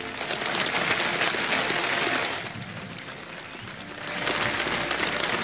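A large audience applauding, loud at first, easing off about halfway through, then swelling again.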